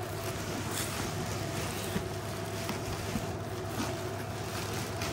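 Steady hum and hiss, with a few faint clicks.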